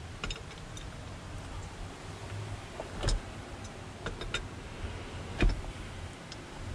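Scattered metallic clicks and knocks of an adjustable spanner and metal fittings as a locker solenoid is worked loose from an air compressor, the loudest knocks about three seconds and five and a half seconds in.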